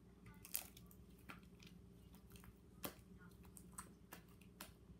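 Sticky homemade slime being stretched and squeezed by hand, giving faint, irregular sticky pops and clicks.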